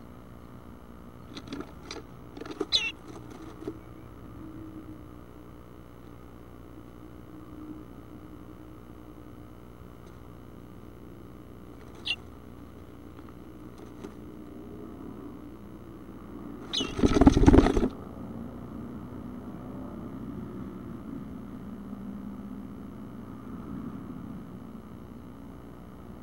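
Bluebirds at the nest box: a few short, high call notes, then about seventeen seconds in a loud noisy burst about a second long carrying another call note.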